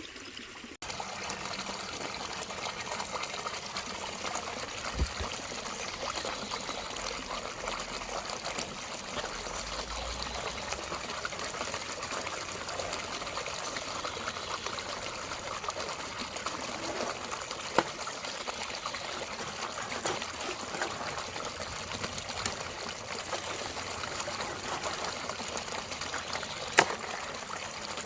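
Running water trickling and splashing steadily, with a sharp click twice in the latter half.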